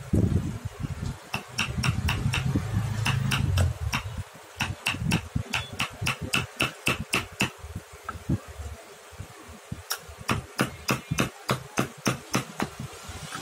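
Wood-carving chisel being tapped into a wooden elephant carving: runs of quick sharp taps, about three or four a second, stopping briefly around the middle and then starting again. A low hum sounds in the first few seconds.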